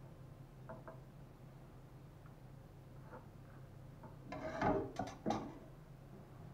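A metal spoon spreading fried chopped beef heart over a lavash with a few faint taps, then clattering against the frying pan as it is put back, about four to five and a half seconds in. A low steady hum runs underneath.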